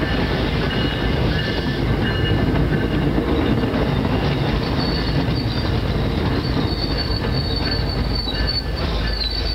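MBTA commuter rail bilevel coaches rolling past at speed: a steady rumble of wheels on the rails, with thin high wheel squeal that grows stronger about halfway through.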